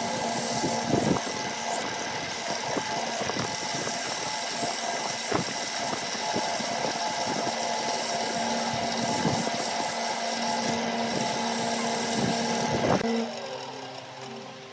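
Wood lathe running while sandpaper is held against the spinning turned wooden piece, giving a steady hiss over the motor's hum. About thirteen seconds in the sanding stops and the lathe keeps running more quietly.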